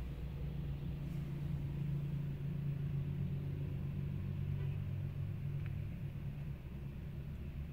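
Hyundai Elantra's engine idling, a steady low hum heard from inside the cabin.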